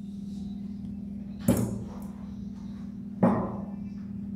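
Two sharp knocks, about a second and a half and three seconds in, from the metal housing of a mast floodlight being handled, over a steady low hum.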